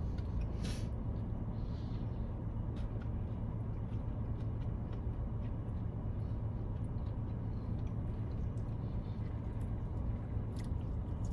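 Car engine idling, a steady low rumble heard inside the cabin, with a few faint clicks scattered through it.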